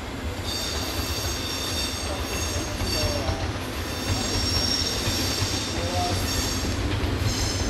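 Steel wheels of a Taiwan Railways PP Tze-Chiang passenger coach squealing on the rails as it rolls slowly: a shrill, several-toned squeal that starts about half a second in and swells and fades, over a low rumble.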